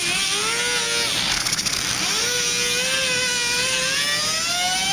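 Hand-held disc grinder grinding rust and paint off a pickup's rocker panel area down to bare metal for welding. It makes a high whine whose pitch sags under load, drops away about a second in, then winds back up and climbs slowly.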